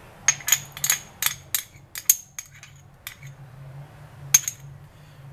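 Quick clinks and taps of kitchenware as chopped pickled gherkins are knocked out of a small ceramic ramekin into a glass mixing bowl: a rapid run of about eight bright clinks over the first two and a half seconds, then a few scattered taps and one sharp clink about four seconds in.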